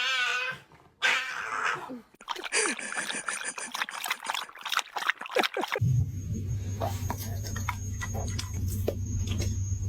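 A cat yowling and meowing in several short calls. A steady low hum with scattered clicks follows about six seconds in.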